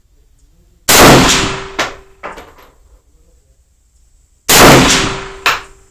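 Two shots from a Ruger Mini-30 semi-automatic rifle in 7.62x39, about three and a half seconds apart, each with a long echo and followed by a couple of shorter, fainter cracks.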